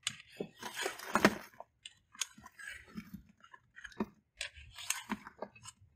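A tool run along the EMT conduit floor bars under a flow-through worm bin, scraping vermicompost loose to harvest it: irregular crunchy scraping with sharp metallic clicks.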